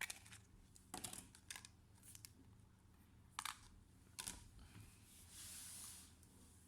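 Scattered small clicks and taps from handling laptop parts, about six in the first few seconds, then a soft hiss lasting about a second near the end.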